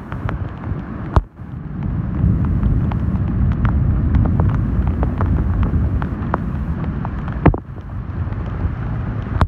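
Storm wind rumbling on a phone microphone in heavy rain, with splashing footsteps through shallow floodwater and many scattered ticks. Two sharp knocks stand out, about a second in and near the end.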